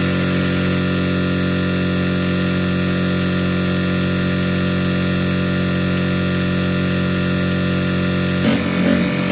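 Dense MIDI synthesizer cluster of many notes held at once, forming one steady, unchanging wall of sound. About eight and a half seconds in it breaks up as moving notes return.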